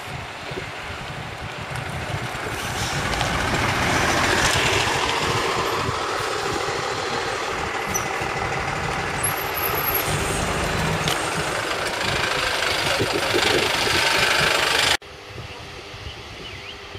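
Diesel engines of single-deck service buses approaching and driving close past. The engine noise builds over the first few seconds and stays loud. About fifteen seconds in it cuts off abruptly to a much quieter outdoor background.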